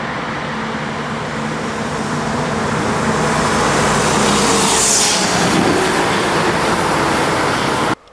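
A motor vehicle driving past close by, growing louder to a peak about five seconds in, where its pitch drops as it goes by. The sound cuts off abruptly near the end.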